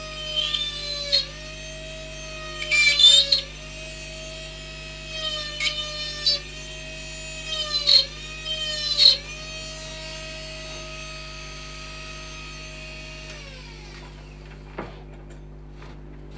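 Small electric rotary carving tool whining steadily, its pitch dipping in several short loud bursts as the bit cuts into the wood to bore pilot holes for the nostrils. Its motor winds down about 13 seconds in when it is switched off, and a light knock follows.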